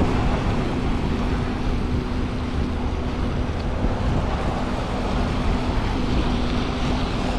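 Road traffic on a wet highway: a steady rush of tyres on wet pavement as vehicles pass, with wind on the microphone.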